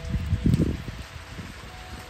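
A gust of wind rumbles on the microphone about half a second in, over the lingering ring of large tube wind chimes, and a fresh chime note starts near the end.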